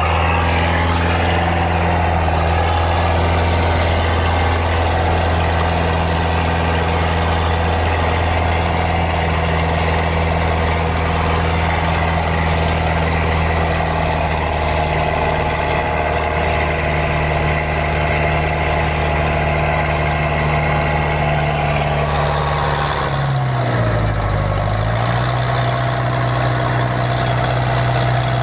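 Mitsubishi 4D31 four-cylinder diesel engine fitted in a boat, running steadily. About twenty-three seconds in it dips briefly in speed, then settles at a slightly lower steady speed.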